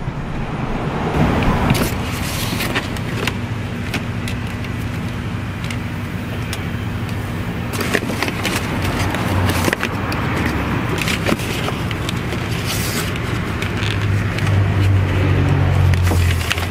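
Thin wires and plastic door trim being handled inside a stripped car door, giving scattered clicks and rustles over a steady low hum.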